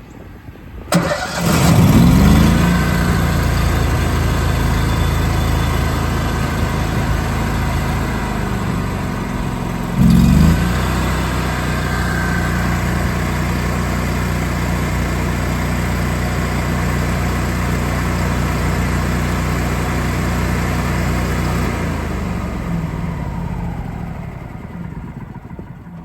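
Miller Trailblazer 325 welder-generator engine cranking and catching about a second in, then running steadily. It gives a short loud surge in speed about ten seconds in, and near the end it is shut off and winds down.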